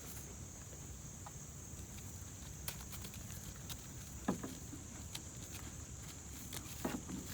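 Two Nigerian Dwarf goats tussling: faint scuffling with a few light, scattered knocks and clicks, over a steady high insect drone.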